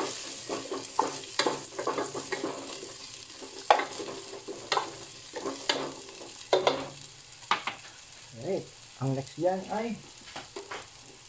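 A spatula stirring and scraping garlic, onion and chili sautéing in hot oil in a pan: steady sizzling under irregular sharp clacks and scrapes against the pan, a few with a brief squeaky pitch, easing off near the end.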